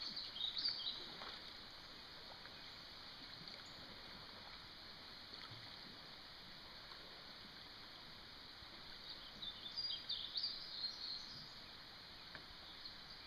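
Quiet creekside outdoor ambience: a faint steady hiss, with a small songbird chirping in short warbling phrases about a second in and again around nine to eleven seconds in.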